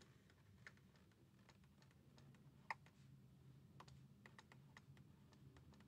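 Near silence with faint, scattered taps of a stylus on a tablet screen during handwriting, one a little louder in the middle and more of them close together in the second half.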